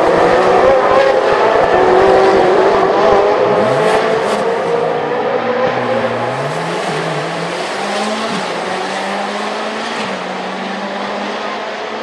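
Ferrari 458 Challenge race cars' V8 engines at racing revs, passing and pulling away, their sound fading. A lower engine note rises and falls in pitch several times through the second half.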